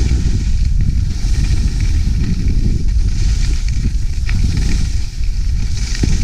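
Skis sliding and scraping over snow, a hiss that swells and fades a few times with the turns, over a heavy rumble of wind on the camera microphone.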